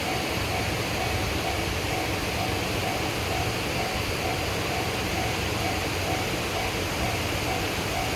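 Japanese railway level crossing's warning bell ringing in an even repeating rhythm, about two strokes a second, over a steady rushing background noise.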